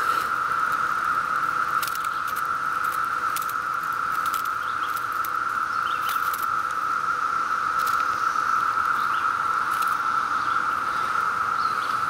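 Steady, unbroken high-pitched chorus of 17-year periodical cicadas, one even drone that holds the same pitch throughout, with scattered faint clicks and ticks over it.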